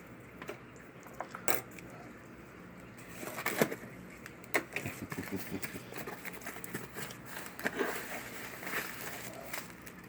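Rustling and crinkling of a mailed package being opened by hand, with scattered light taps and clicks. It gets busier from about three seconds in.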